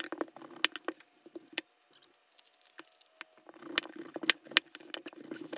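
Kitchen knife slicing through an onion and knocking on a bamboo cutting board: a series of sharp, irregularly spaced taps.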